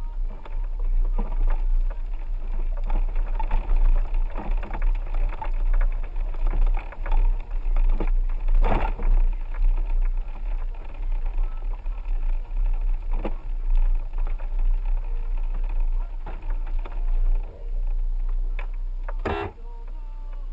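A 4x4 driving over a rough dirt road: a steady low engine and road rumble with frequent knocks and rattles, and two louder knocks, one about nine seconds in and one near the end.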